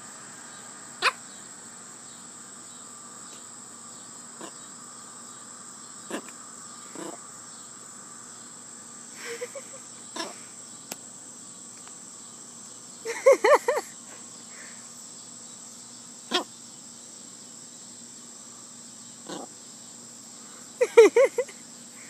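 Small pomchi (Pomeranian–Chihuahua mix) dog giving two quick runs of short, high yaps, about thirteen seconds in and again near the end, when the petting stops. Crickets chirr steadily underneath, and a few sharp knocks come in between.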